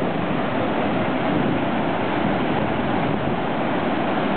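Muddy, debris-laden flash-flood water rushing steadily down a wide wash.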